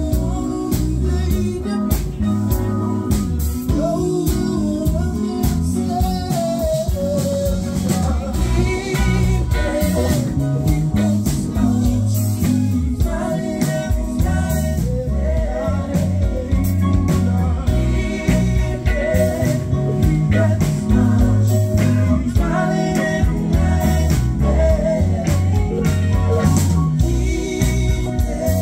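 Live band playing a song: electric guitar, keyboard and drum kit, with a lead melody over them.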